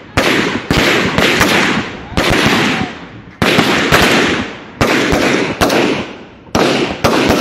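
Several AK-pattern rifles firing single shots, about nine irregularly spaced cracks from different shooters, each ringing out in a long echo that overlaps the next.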